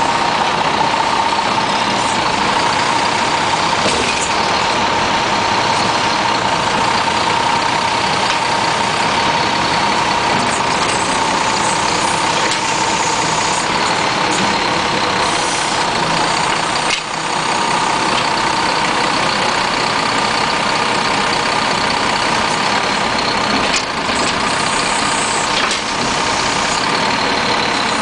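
Peterbilt 320 side-load garbage truck's diesel engine running steadily at idle, with a steady high whine over it, while the automated side-loader arm is worked.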